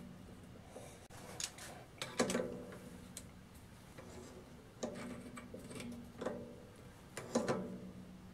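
Light metal clicks and clinks, about half a dozen spread out, some ringing briefly. They come from a steel tool-post stud being screwed by hand into the compound slide of a Weisan WM210F400 bench lathe, with metal parts knocking together as they are handled.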